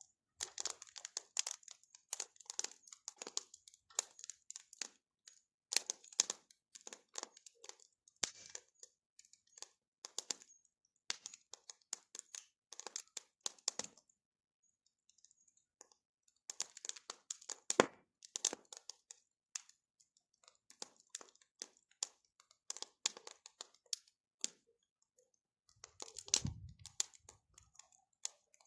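Bonfire burning with irregular crackling and popping snaps, briefly easing off around the middle, and a low thump near the end.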